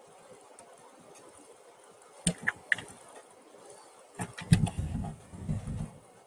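A few sharp clicks and taps, then a cluster of clicks followed by a short stretch of low knocking and bumping, like handling noise at a desk.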